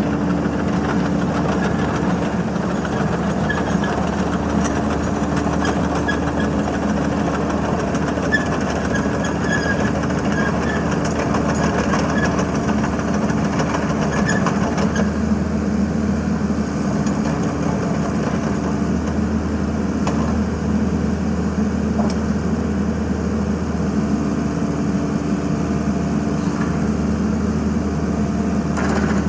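XCMG XE55DA midi excavator's diesel engine running steadily, first as the machine travels on its tracks, then while the boom, arm and bucket are worked hydraulically. The sound changes about halfway through, when the travel stops.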